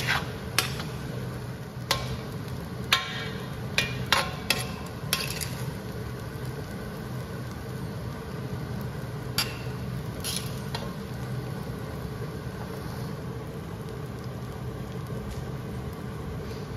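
Metal wok spatula scraping and clinking against an iron wok as fried rice is stirred, with several sharp knocks in the first five seconds and a couple more around ten seconds in. A steady low hum runs underneath.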